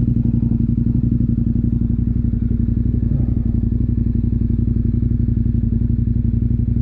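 KTM motorcycle engine running at a steady speed, with an even, pulsing exhaust note and no change in revs.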